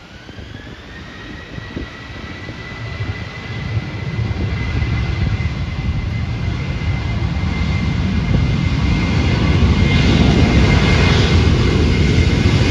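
Boeing 737-800's CFM56 turbofan engines spooling up for take-off. A whine rises in pitch over the first two seconds and settles into a steady high tone, while the jet's low rumble grows steadily louder.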